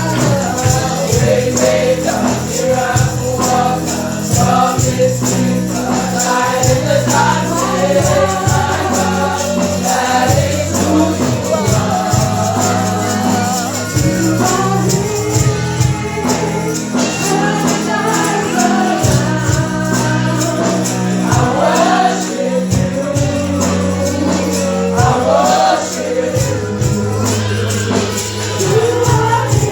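Gospel praise music: several voices singing over a band with a steady percussive beat and a sustained bass.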